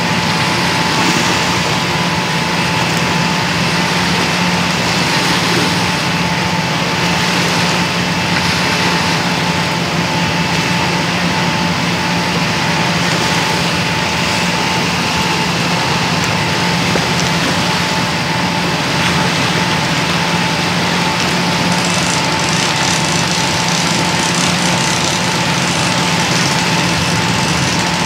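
Boat engine idling steadily, an unchanging hum with a faint higher whine over a hiss.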